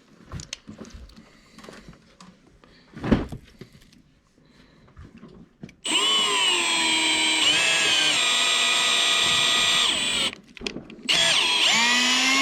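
Power drill working a screw hole in a boat's gel-coated deck, running in two long bursts starting about six and eleven seconds in, its whine dipping in pitch each time it bogs under load. A few light knocks and one thump come before it.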